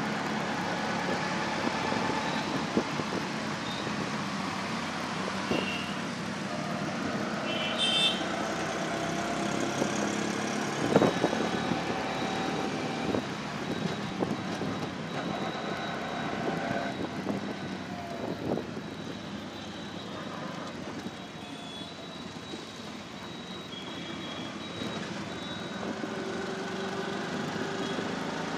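Auto-rickshaw's small engine running while under way, heard from inside the cab, with its pitch shifting as it speeds up and slows in traffic. A few short high horn beeps sound about five and eight seconds in, and a sharp knock about eleven seconds in is the loudest moment.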